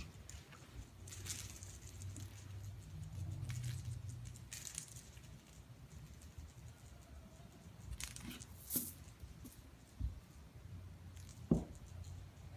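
Two kittens playing: soft pattering and scuffling of paws, with a few sharp knocks, the loudest near the end, over a low steady hum.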